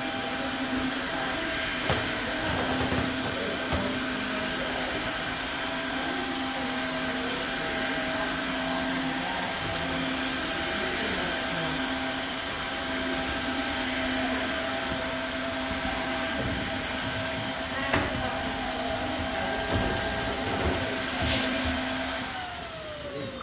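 Tineco cordless wet-dry floor cleaner running steadily with a constant motor hum and whine as it is pushed over hardwood, with a few light knocks. Near the end the motor winds down, falling in pitch as it shuts itself off mid-clean, a fault the owner puts down to the machine wrongly sensing too little suction pressure.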